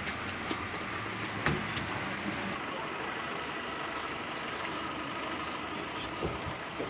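Street noise with a motor vehicle running, steady throughout, broken by a few short clicks and knocks, the sharpest about one and a half seconds in and a couple of dull thumps near the end.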